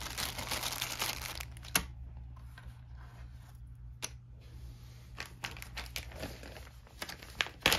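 Clear zip-top plastic bag of game tokens crinkling as it is handled and set down. The crinkling is densest in the first two seconds, then gives way to a few scattered rustles and light clicks.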